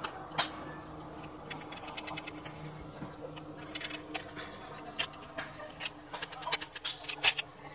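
Paintbrush scrubbing and tapping in a metal palette tin as gouache is mixed: irregular small clicks and scratchy ticks, busier and louder in the second half, over a faint steady low hum.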